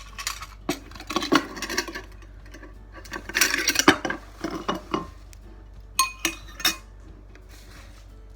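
A bowl and utensils being handled: a string of clinks and knocks with scraping and rustling in between, while the broth is got ready to pour over the noodles.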